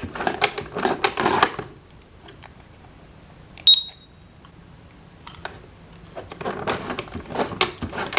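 A My Little Pony toy electronic cash register gives a single short, high beep as an item is rung up. Before and after it comes plastic clicking and rustling from toy packages being handled.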